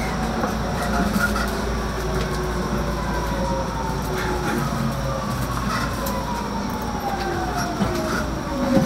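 Running sound of a JR East 209-500 series EMU heard inside a motor car: the GTO VVVF inverter and traction motors whine in several tones that fall slowly in pitch as the train slows, over a steady rumble of wheels on rail. A brief knock near the end.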